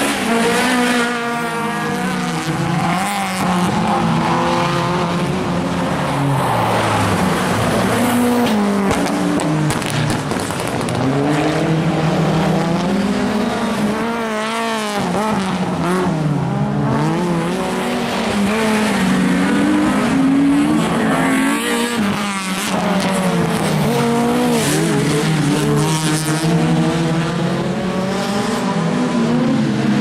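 Rallycross cars racing through a corner, their engines revving up and dropping back again and again through gear changes and lifts, with tyre squeal as the cars slide.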